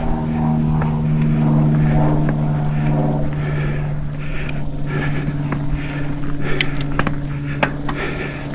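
Mountain bike coasting downhill: the rear freehub buzzes steadily with a pitched hum, fading somewhat after about three seconds, while the bike clatters over rough trail with sharp clicks and tyre noise in the second half.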